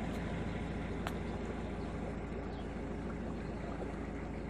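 A canal boat's engine running steadily as the boat cruises along, an even low drone with a faint wash of water.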